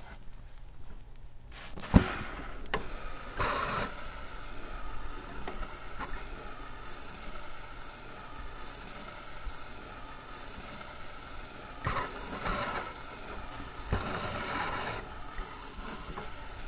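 Stylus on a vinyl record: a sharp click about two seconds in, then steady crackling surface noise with a few brief scratchy rushes.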